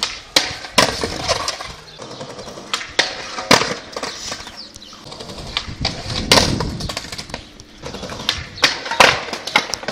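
Skateboard on paving slabs: a rough rolling noise broken by about eight sharp clattering knocks as the board slaps down and hits the ground in a bail.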